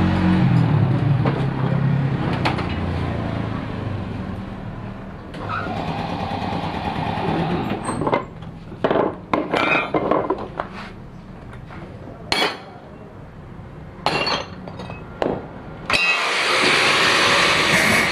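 An engine running and fading away over the first few seconds, then a string of sharp knocks and clinks. Loud music cuts in abruptly near the end.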